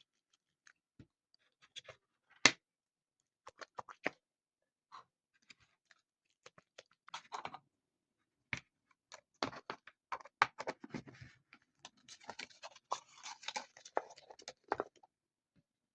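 Small fidget toys being handled and set down: scattered light clicks and taps, with a stretch of denser rustling, like plastic packaging, from about three-quarters of the way through.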